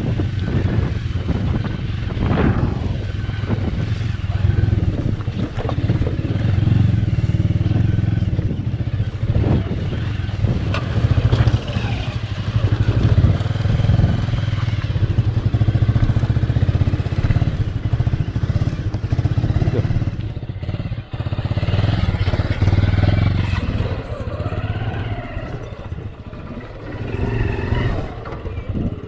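Bajaj Avenger 220's single-cylinder engine running steadily at low revs as the motorcycle rolls slowly down a rough off-road trail, with frequent knocks and rattles from the bike jolting over the stony track.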